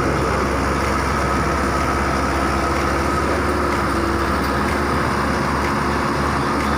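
Excavator's diesel engine running steadily, a constant low rumble with a faint whine above it.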